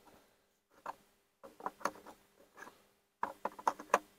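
Things being handled and set down on a pickup's tailgate: several short clusters of light clicks and knocks from hard objects.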